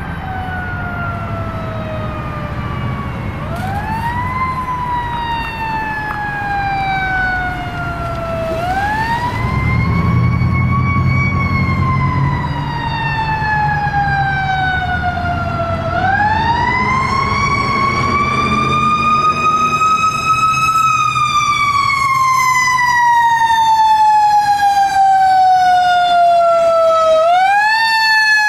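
Fire truck's Federal Q mechanical siren winding up and coasting slowly down in long cycles, four wind-ups in all, over the truck's engine running, growing louder as the apparatus approaches.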